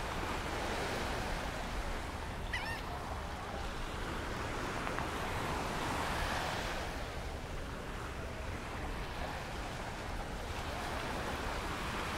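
Surf washing onto a sandy beach, the wash swelling around the middle, with wind rumbling on the microphone. A brief bird call comes about two and a half seconds in.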